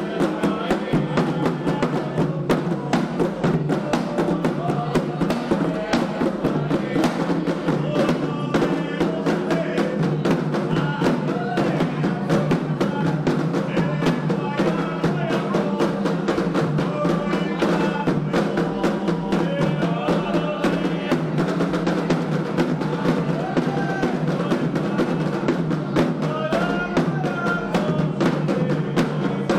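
Candomblé atabaque hand drums playing a fast, steady ritual rhythm, with voices singing a chant over them.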